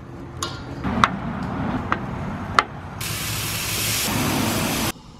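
A few sharp clicks as the propane tank valve and gas grill are handled. About three seconds in, a loud, steady hiss of chicken breasts sizzling on the grill's grates, which cuts off suddenly near the end.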